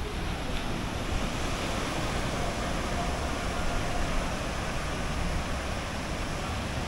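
Small waves breaking and washing up over a sandy beach in a steady rush, with wind rumbling on the microphone.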